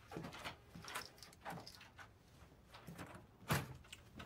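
A scattered series of short knocks, clicks and rustles from a person moving about and handling things in a small room. The loudest knock comes about three and a half seconds in.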